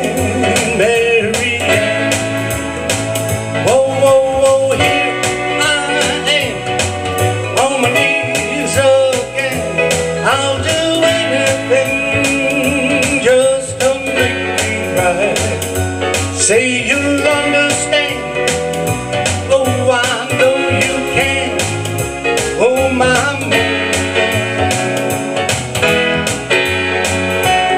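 Country-style song played live on an electronic keyboard with a full backing arrangement and a steady bass beat.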